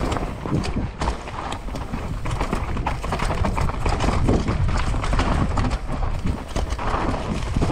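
Downhill mountain bike rolling fast over a rough trail: tyres on dirt and rock, with a dense, irregular clatter of knocks and rattles from the bike. It starts suddenly at the very beginning.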